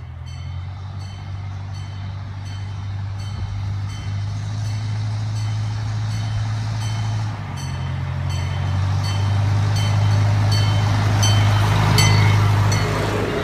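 Chance Rides C. P. Huntington miniature train locomotive approaching and passing. A steady low engine drone grows louder, with a regular clicking about twice a second, and is loudest near the end as the locomotive comes alongside.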